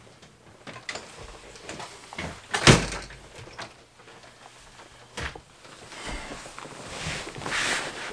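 A door being opened and shut: small clicks of the latch and a sharp knock about a third of the way in, the loudest sound, with another knock later. Near the end comes a rustle of clothing and a backpack as a person lies down on the carpet.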